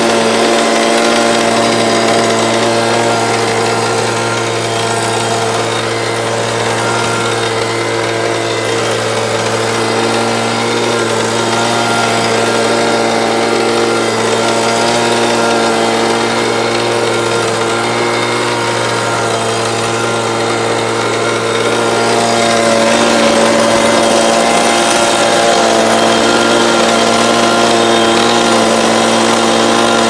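Garden blower-vacuum running steadily, blowing snow off paving stones: a loud, even motor hum with a rush of air, a little quieter a few seconds in and a little louder toward the end.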